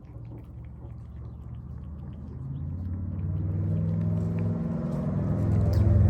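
A cat's low, pulsing rumble close to the microphone, growing much louder from about halfway through.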